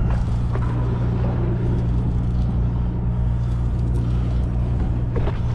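Sportfishing boat's engine running with a steady low drone, with water and wind noise over it.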